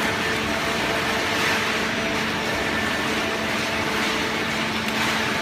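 Automatic cardboard baler running: a steady machine hum with several constant tones over an even whirring noise.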